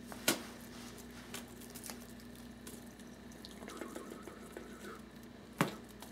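Quiet room with a steady low hum, broken by two sharp knocks, one just after the start and one near the end, with a few faint ticks in between.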